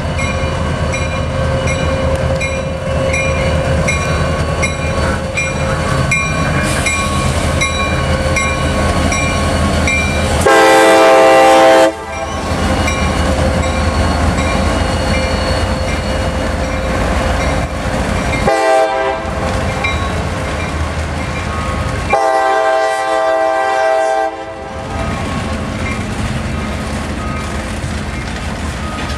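CSX freight train passing close by: diesel locomotives running under power, then freight cars rolling past with wheels clicking over the rail joints. The locomotive's air horn sounds a chord of several notes three times, a long blast about ten seconds in, a short one, then another long one. This is the warning for the Farmer St. grade crossing.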